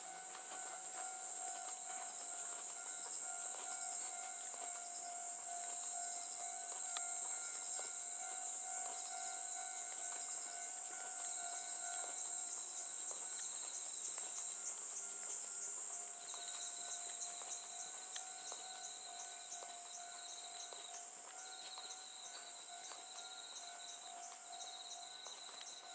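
A steady, high-pitched chorus of night insects, with a second, lower trill from another insect coming and going from about six seconds in. A faint steady tone sits underneath.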